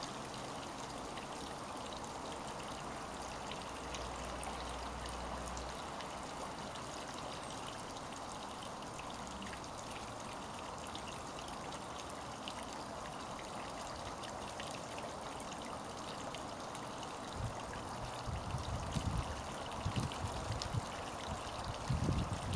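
A steady trickle of running water. Over the last few seconds a black East Indian duck bathes, making irregular splashes that are louder than the trickle.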